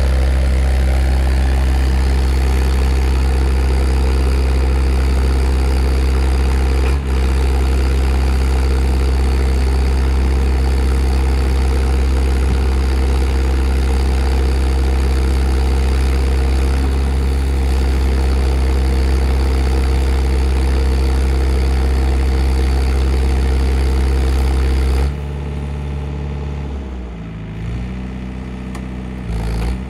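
Mait Baby compact drill rig's engine running steadily and loudly. About 25 seconds in it drops to a quieter running, its pitch shifting up and down near the end.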